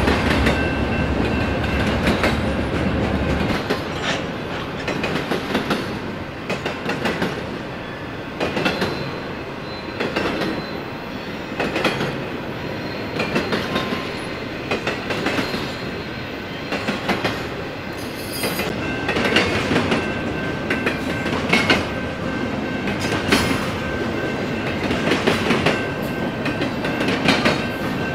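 Double-stack intermodal freight cars rolling past at speed, their wheels clacking over rail joints in repeated clusters, with a faint wheel squeal over the steady rumble.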